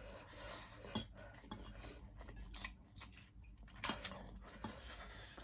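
A fork and spoon clinking and scraping against plates, faint, with two sharper clinks about a second in and just before four seconds.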